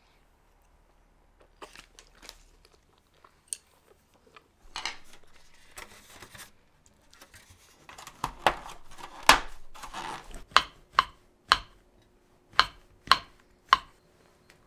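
Plastic cake tray and its lid being handled and closed: plastic crinkling and rattling, then a run of about six sharp clicks over three seconds as the lid is pressed on.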